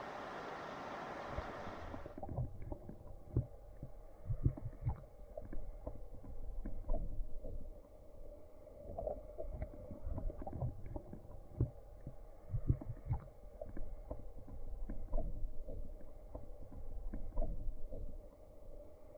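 River current heard above the surface as an even hiss, cutting about two seconds in to the same flow heard underwater through a submerged camera housing: muffled, irregular low thuds and rumbles with scattered small clicks, nothing high-pitched.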